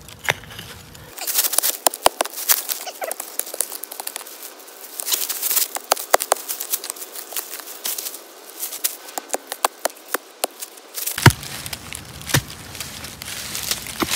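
A hoe chopping into soil and roots around a bamboo shoot, with dry leaves crunching and crackling underfoot. The chops come as a string of irregular clicks and crunches, with a couple of sharper strikes about eleven and twelve seconds in.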